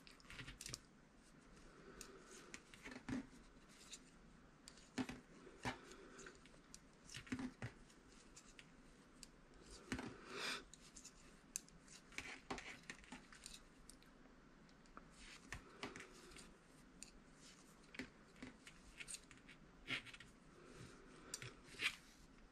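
Knitting needles clicking and scraping against each other as stitches are worked, faint and irregular, with a few louder taps and a short scrape about halfway through.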